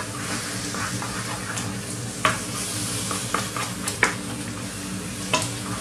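Mashed aubergine sizzling in olive oil in a frying pan as a wooden spatula stirs and scrapes through it, with a few sharp taps of the spatula on the pan. The sizzle is the purée's excess water cooking off as it is dried out.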